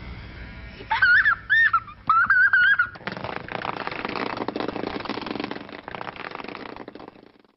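A young child's high-pitched play noises: a few rising-and-falling whoops, then a quick warbling siren-like wail lasting about a second. After that comes about four seconds of steady, rough scraping noise that fades out near the end.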